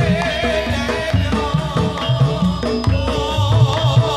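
Ndolalak folk music played live: frame drums and a large double-headed barrel drum keep a steady, repeating beat under a keyboard and a wavering melody line.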